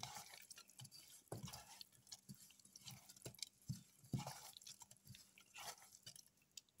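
Faint, irregular wet squelching and slapping of a bare hand rubbing spice marinade into raw shark pieces in a bowl.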